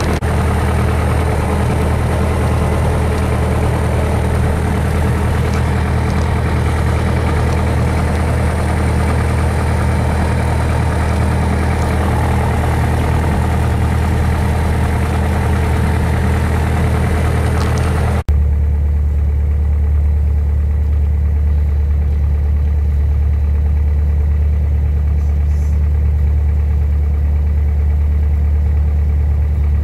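Single-engine light aircraft's engine and propeller running at low power on the ground, heard from inside the cockpit as a loud, steady drone. About eighteen seconds in the sound cuts abruptly to a deeper, duller drone.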